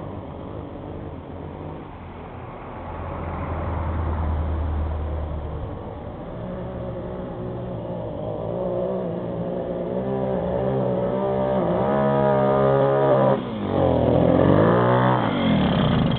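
Puch Maxi moped's 70cc Parmakit two-stroke engine running poorly, its revs wavering and climbing over the last half. It cuts back suddenly a little after the middle of that stretch, then picks up again.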